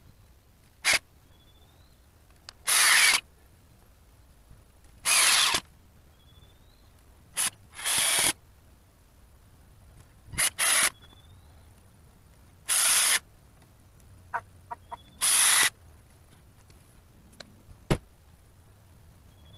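Cordless drill run in short bursts, about eight of roughly half a second each, a few seconds apart, as screws are driven or backed out.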